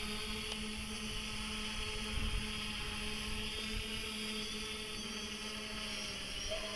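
FIMI X8 SE quadcopter's propellers humming steadily in flight, over a low uneven rumble.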